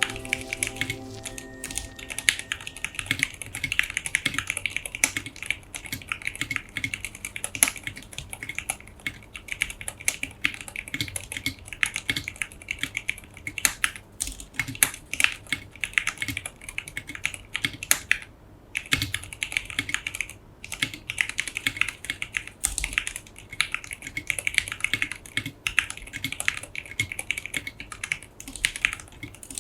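Continuous fast typing on a modded Leopold FC660M mechanical keyboard, a dense patter of keystrokes with two brief pauses a little past halfway. The background music is ending as the typing begins.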